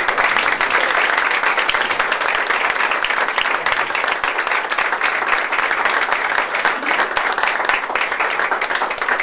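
A small crowd of people applauding, dense hand clapping.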